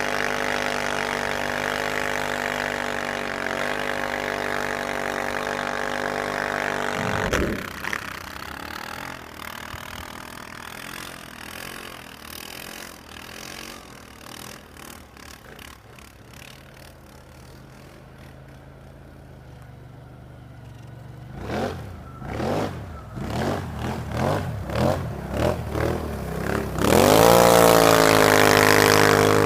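ATV engine running steadily at high revs, then dropping abruptly to a low idle about seven seconds in. After a long stretch of idling it gives a series of about eight short throttle blips, then revs up loudly near the end as it pulls away.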